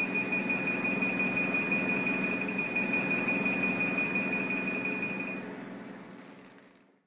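Diode laser hair removal machine firing in repeated pulses: a steady high-pitched beep over a hum, with a quick regular pulsing. The beep stops about five seconds in, and the rest fades out soon after.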